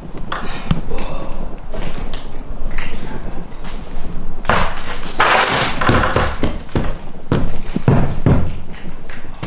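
Irregular footsteps, thuds and clicks on bare wooden floorboards littered with broken glass and debris, echoing a little in a large empty room.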